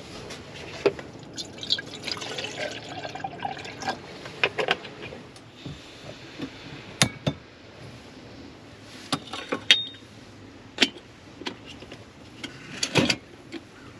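Water poured from a plastic jug into a small aluminium camping kettle for a few seconds, followed by several sharp clicks and knocks as the kettle and a screw-on canister gas stove are handled and set up.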